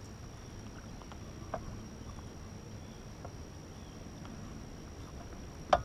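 Steady low noise of wind and water around a small fishing boat. A light knock comes about a second and a half in, and a sharp, loud knock near the end.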